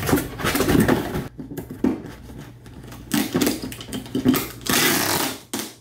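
Small cardboard shipping boxes and packaging handled by hand while being packed: scratchy rustling and scraping, once for about a second at the start and again for about two and a half seconds in the second half.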